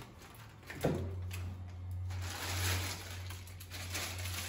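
A knock about a second in, then plastic shopping and produce bags rustling and crinkling as groceries are pulled out of a shopping bag, over a low steady hum that starts with the knock.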